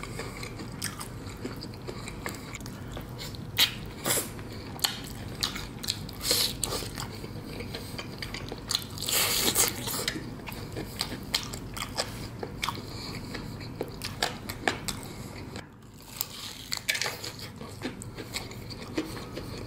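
Close-up biting, crunching and chewing of crispy flour-battered deep-fried chicken, with irregular sharp crunches throughout and a longer run of crunching about nine seconds in.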